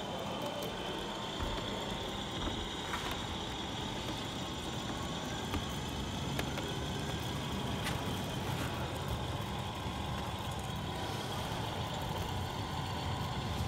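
Radio-controlled model semi-truck driving slowly, its engine-sound module giving a steady diesel-truck engine rumble, with a steady high tone and a few faint clicks over it.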